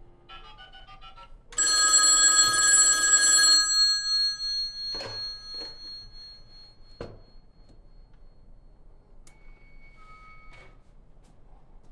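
Telephone line being dialed, with a brief run of dialing tones, then a rotary telephone's bell rings loudly for about two seconds and fades. A few thuds follow as the handset is lifted and seated in an acoustic coupler. Near the end two Bell 103 modem tones sound together briefly: the answering modem's 2225 Hz mark tone and the calling modem's 1270 Hz mark tone.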